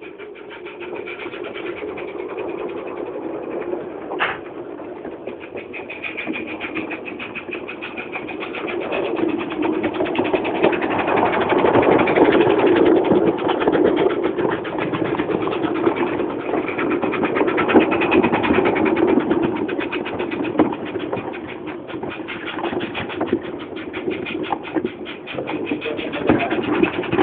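Roundhouse 'Fowler' gas-fired live-steam model locomotive running past with its wagons: a rapid, even run of beats and clatter on the track that grows louder as it draws near and eases as it goes by. There is a single sharp click about four seconds in.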